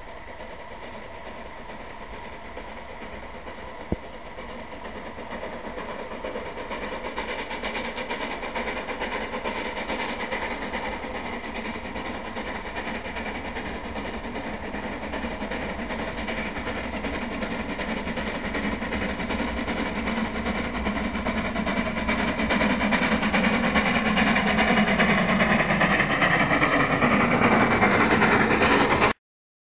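Narrow-gauge Orenstein & Koppel steam locomotive running light on a test run. Its working sound grows steadily louder as it approaches, then cuts off abruptly near the end.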